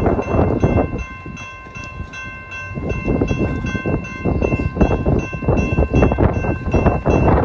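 Gusty wind buffeting the microphone, easing for a couple of seconds early on, over the steady ringing of a railroad grade-crossing bell.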